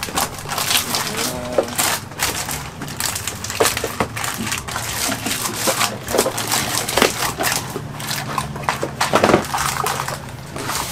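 Crinkling and rustling of the foil bags from bag-in-box cartons as they are handled and pressed into a floor locker, with irregular crackles and light knocks of cardboard. A steady low hum runs underneath.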